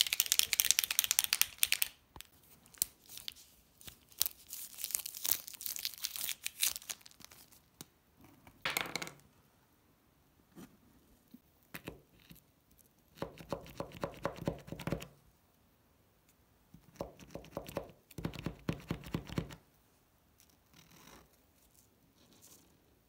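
A Posca paint marker being handled and primed: two runs of sharp, high-pitched rattling in the first seven seconds as it is shaken, then three bursts of duller rapid clicking as its tip is pumped down against the paper to bring up the gold paint.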